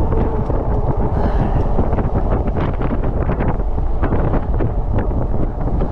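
Wind buffeting the microphone of a handlebar-mounted camera on a moving e-bike, a loud, steady rush heaviest in the low end, with scattered light clicks and ticks.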